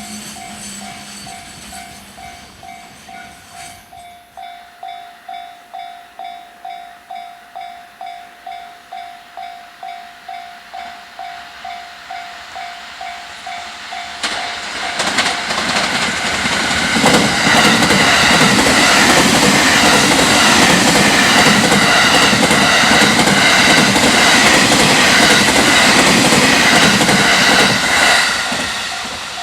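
A level-crossing warning bell rings about twice a second. About halfway through, a freight train comes up and passes the crossing at high speed, with loud clattering from the rail joints under the wagons. The train noise drops away near the end.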